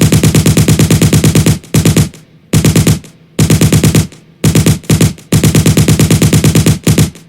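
M134 Minigun machine-gun fire in repeated bursts of rapid, evenly spaced shots, with brief pauses between bursts, the longest bursts at the start and from about five seconds in.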